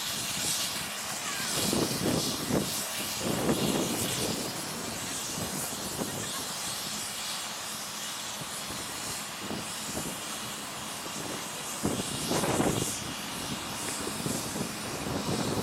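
Miniature live-steam locomotive hissing steadily as it moves slowly along the track, with a few louder bursts.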